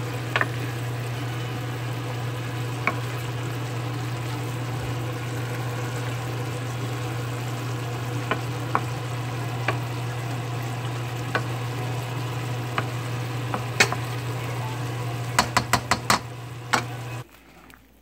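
Diced celery, onion and mushrooms sizzling in a skillet while a wooden spoon stirs them, with scattered clicks of the spoon against the pan and a quick run of clicks near the end, over a steady low hum. The sizzle stops about a second before the end.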